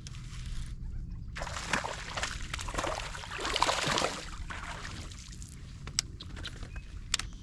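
Water splashing and sloshing beside a kayak as a hooked bass is pulled in, loudest about halfway through, followed by a couple of sharp clicks near the end.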